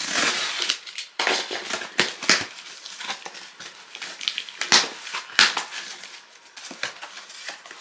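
Cardboard shipping box being handled and shifted, rustling and scraping, with several sharp knocks.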